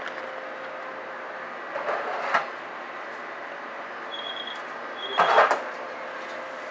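Steady hum of fast-food kitchen equipment, with two short bursts of noise about two and five seconds in and a brief high beep sounding twice between them.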